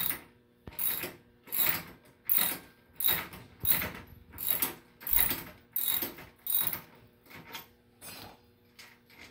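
Adjustable wrench working a wheel's axle nut loose on an electric trike: a metallic rasp with each stroke as the nut is turned off the threaded axle, about a dozen strokes in a steady rhythm, a little faster than one a second.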